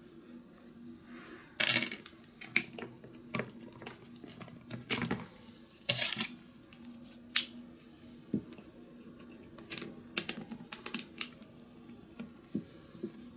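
Hands handling small plastic toy parts: a string of irregular clicks, taps and rustles. Near the end a piece is pressed onto a Mr. Potato Head toy. A faint steady low hum runs underneath.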